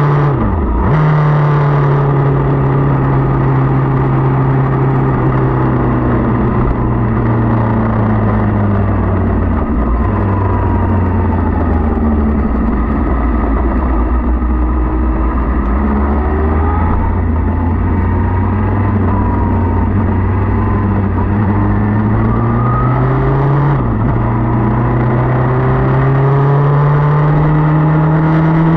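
Motorcycle engine heard on board while riding, over a steady rush of noise. The revs fall slowly over the first ten seconds and stay low for a while, then climb again, with a quick gear change about half a second in and another near the end.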